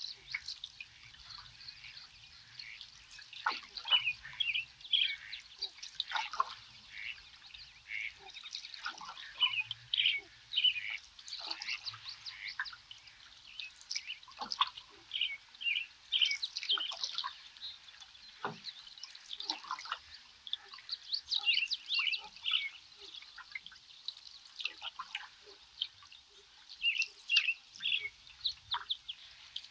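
A chorus of small birds chirping and calling in short, quick notes throughout, over light dripping and splashing of water from a canoe paddle.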